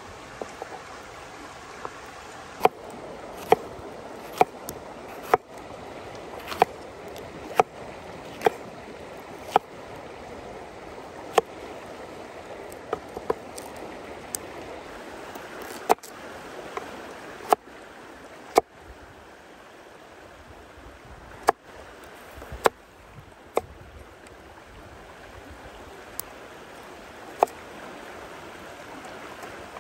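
A cleaver-style kitchen knife chopping bell peppers and carrots on a wooden cutting board: single sharp knocks of the blade on the board, irregular and roughly one a second. A stream runs steadily behind them.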